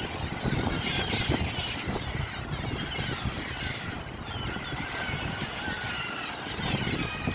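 Sea waves washing in a low, steady rush, with many birds chirping and calling over it.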